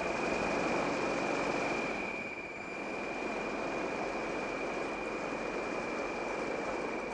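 Steady machine-like hum and hiss with a constant high-pitched whine over it, a film soundtrack's ambient effect.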